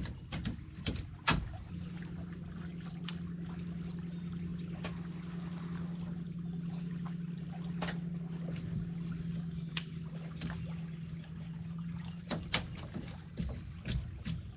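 Electric trolling motor running with a steady low hum, starting about two seconds in and cutting off about two seconds before the end, with scattered sharp clicks.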